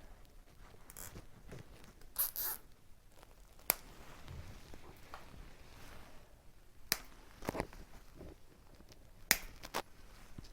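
Nylon cable ties being pulled tight around bike cables: several short zipping rasps and a few sharp single clicks, spread out with pauses between them.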